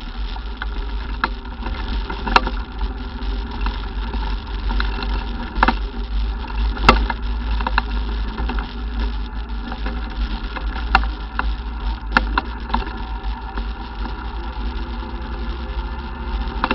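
ATV engine running on the move, with a heavy low rumble and several sharp knocks and rattles scattered through.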